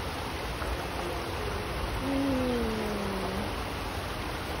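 Shallow stream flowing over rocks, a steady rush of water. About two seconds in, a single low hooting note slides down in pitch for over a second.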